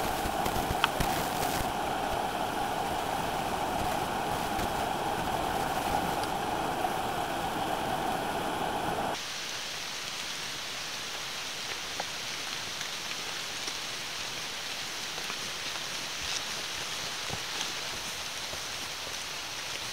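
Steady rush of water from a small cascading waterfall. It cuts off sharply about nine seconds in, giving way to a quieter, hissier patter of steady rain in the forest with scattered drips.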